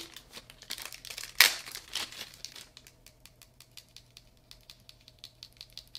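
A small clear plastic bag crinkling as pink plastic tweezers are worked out of it: dense crackling in the first couple of seconds with one sharp, loud crackle about a second and a half in, then only a few faint ticks.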